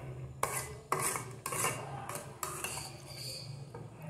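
Metal spoon scraping and clinking against a blue-rimmed enamel plate while food is scooped up, about five short scrapes in quick succession, then one more near the end.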